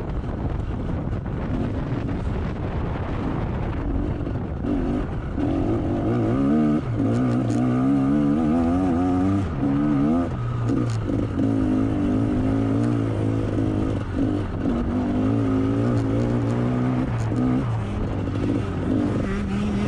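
Motocross bike engine running hard, its pitch rising and falling again and again as the throttle is worked. Wind noise on the microphone dominates the first few seconds.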